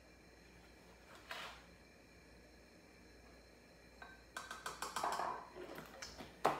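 Measuring spoon scooping sugar and working against a glass measuring cup: a brief scrape about a second in, then a run of small clicks, taps and rustling from about four seconds, ending in one sharp clack.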